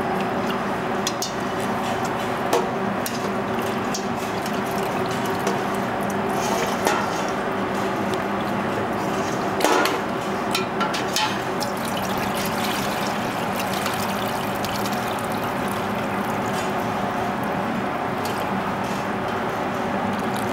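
Metal ladle knocking a few times against a stainless stockpot and tray as boiled pork pieces are lifted out of broth, with liquid dripping and sloshing, over a steady background hum.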